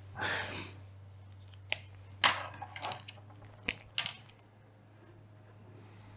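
Pens and small objects handled on a desk: a soft rustle at the start, then a handful of sharp clicks and taps over about two and a half seconds, as a pen is put down and another taken up to draw.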